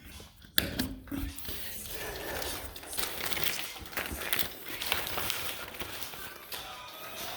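Carpet and padding being pulled and handled: rustling and crinkling with scattered sharp knocks and clicks.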